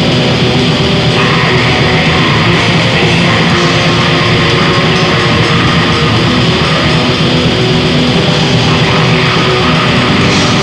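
Raw black metal recording: heavily distorted electric guitar in a dense, unbroken wall of sound at a constant high level.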